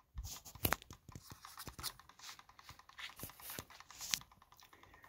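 Irregular scraping, rubbing and knocking as the coil's sliding acrylic mount is pushed by hand on a Hall-sensor pulse motor. Underneath runs a rapid, even ticking from the spinning magnet rotor and its pulsed coil, at about ten ticks a second. The ticking stands out alone once the handling stops, about four seconds in.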